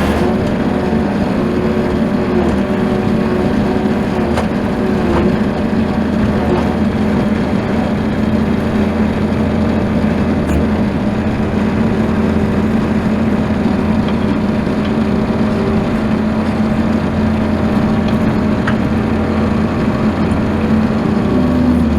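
Bobcat skid steer loader's engine running steadily at a constant speed, picking up slightly just before the end.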